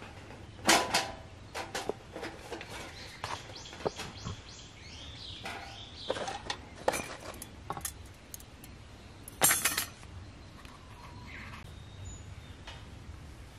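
Camping gear being handled: a string of small knocks and clicks with some scraping, and one louder scrape about nine and a half seconds in.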